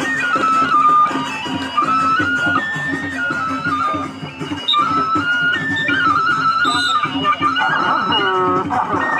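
Traditional Sasak presean fight music: a shrill wind instrument plays a stepping melody over a steady low drone and a busy rhythm of drums and percussion. A voice briefly calls out near the end.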